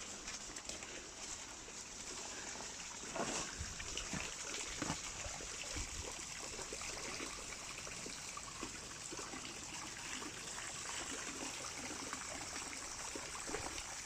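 Water trickling steadily, with a few faint scattered knocks or rustles.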